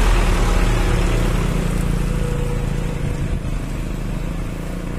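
Isuzu ELF NMR 71 dump truck's four-cylinder diesel engine pulling up an incline as it passes close by and moves away, the engine sound fading steadily.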